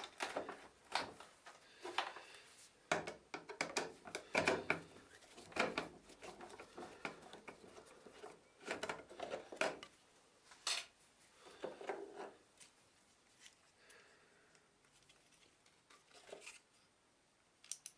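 Irregular small clicks, taps and scrapes of a screwdriver and plastic vacuum-cleaner housing parts being handled during disassembly, with a quieter lull in the second half.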